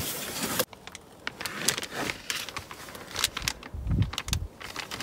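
Cardboard box and plastic bag being handled as a car grab handle is unpacked: scattered rustling, scraping and light clicks, with a couple of dull bumps about four seconds in.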